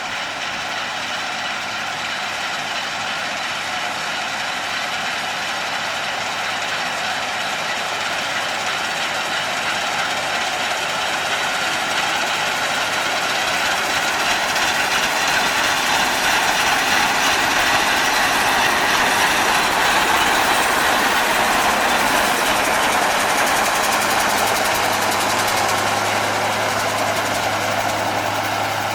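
Massey Ferguson 510 combine running steadily in the field, its noise growing gradually louder and then easing slightly near the end.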